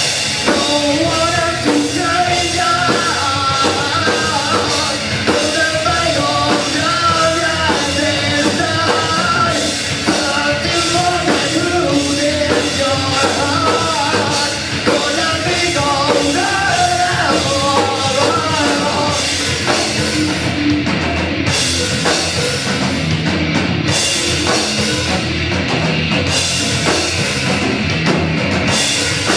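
Live rock band playing loud, with drums and amplified instruments. A melodic lead line runs over the band for about the first two-thirds, and in the last third the high cymbal wash cuts out in several short breaks.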